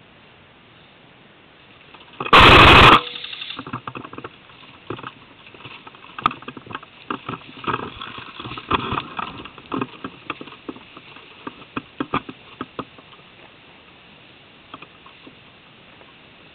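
Airsoft AK74 electric rifle firing a short rapid burst close to the microphone, loud enough to clip, about two seconds in. It is followed by scattered rustling, clicks and footfalls in leaf litter and undergrowth for several seconds.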